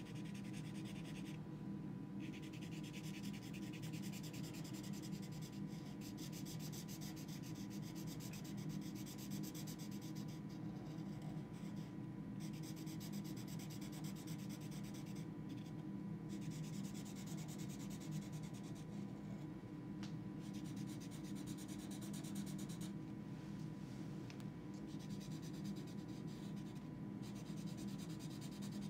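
Black Sharpie permanent marker rubbing and scratching across watercolour paper as a tentacle is coloured in solid. The strokes stop briefly every few seconds, over a steady low hum.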